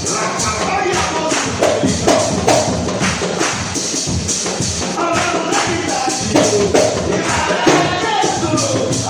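Church worship music: voices singing over a steady, fast percussion beat.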